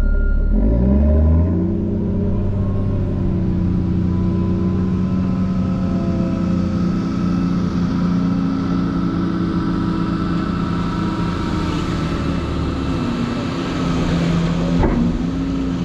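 Heavy-equipment diesel engine revving up over about the first second and a half, then running steadily, with a brief clank near the end.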